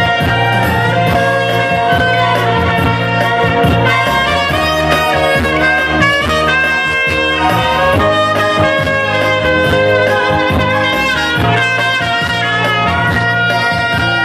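Two trumpets playing a lively tune together over backing music with a steady low bass.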